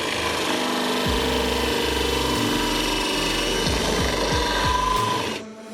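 Power drill running steadily as it bores out the small factory hole in a fountain sphere to take a larger pipe, then stopping shortly before the end.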